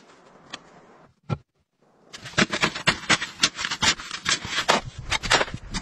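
Small metal-bladed shovel chopping and scraping into packed snow: quick crunching strikes, several a second, starting about two seconds in after a couple of faint clicks.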